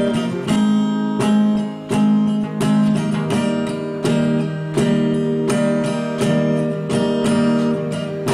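Acoustic guitar strumming steady chords with no voice, the instrumental close of the song after the last sung line.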